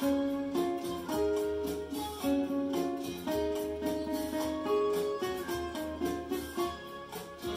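Acoustic guitar played by picking a melody of single notes, one after another, some left ringing under the next.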